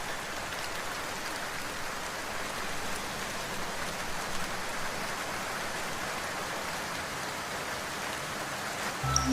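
Steady rain falling, an even hiss of drops that holds level throughout. Music starts again just at the very end.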